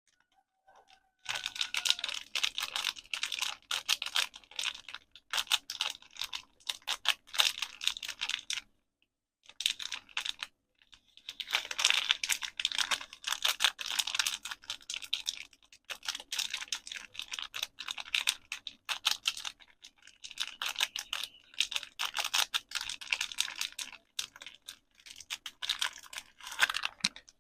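Rapid fingernail tapping on soap packaging: long runs of quick, crisp clicks with a few short pauses.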